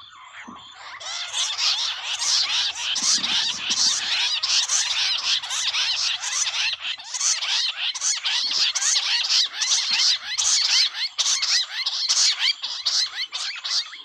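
Bush quail calling in a dense chorus of rapid, repeated trilling notes, starting about a second in and cutting off suddenly.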